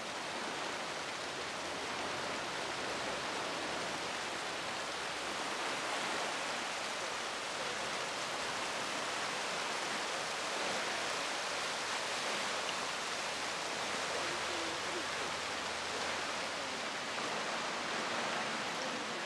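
Water gushing through the sluices of a staircase canal lock's upper gates into the chamber below, a steady rushing churn: the lock is filling to raise the boats inside it.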